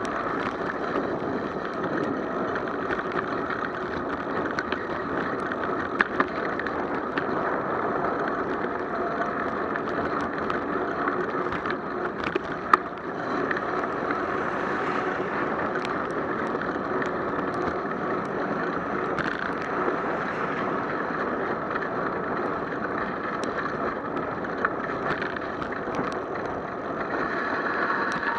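Bicycle riding on rain-soaked pavement: a steady hiss of tyres and water spray, with a few sharp knocks from bumps, the loudest about halfway through.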